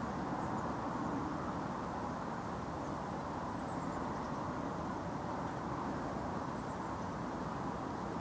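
Steady low rushing outdoor noise with no distinct events, and a few faint, short, high chirps now and then.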